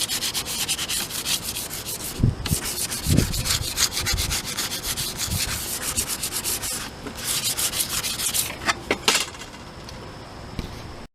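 Fine wet-or-dry sandpaper rubbed by hand over a flat copper sheet cutout, rapid back-and-forth scratchy strokes that scuff the surface so solder will stick. The strokes pause briefly twice, with a couple of low knocks about two and three seconds in, and stop about nine seconds in.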